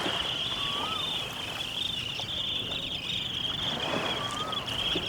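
Outdoor nature ambience: a steady high-pitched insect drone, with two short whistled calls, one about a second in and one near the end, over wind noise.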